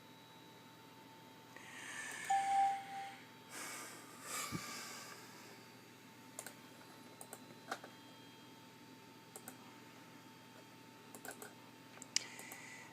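Scattered sharp clicks of a computer mouse and keyboard in use, following two louder soft, noisy sounds in the first few seconds; a faint steady high whine runs underneath.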